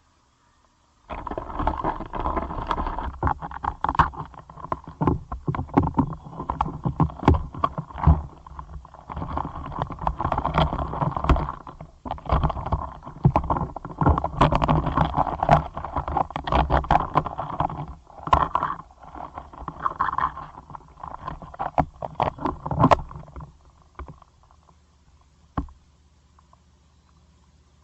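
Close-miked Caucasus beetles scratching, scraping and clicking against each other and their perch, in a dense crackling run that starts about a second in, comes in waves, and dies away a few seconds before the end.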